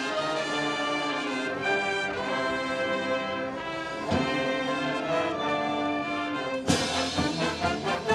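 Brass band playing an instrumental passage in sustained chords. About seven seconds in, a sharp hit lands and the horns break into short, punchy notes with further hits.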